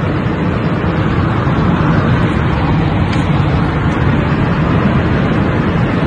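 A tornado's wind: a loud, steady rushing noise with no distinct knocks or breaks.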